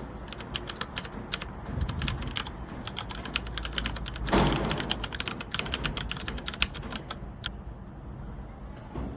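Many quick, irregular sharp clicks and taps, with a short louder rustling scrape about four and a half seconds in.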